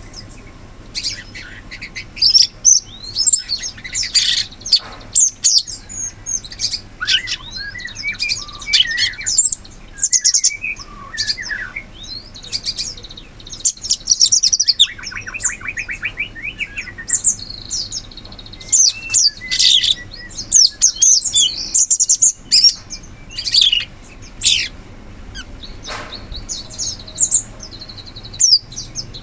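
Cucak cungkok songbird singing in a busy stream of short, sharp, high chirps and whistled notes, with a fast rattling trill about halfway through.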